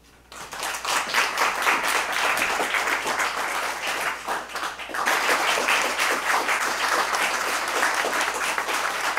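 Audience applauding, breaking out suddenly just after the last line of a reading, a dense clatter of many hands clapping that dips briefly about four seconds in and then picks up again.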